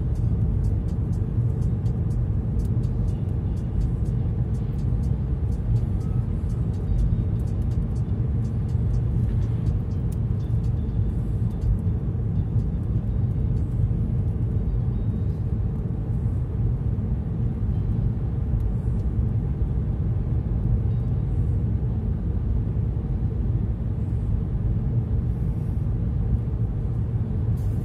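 Steady low rumble of a car driving along a highway, engine and tyre noise running unbroken.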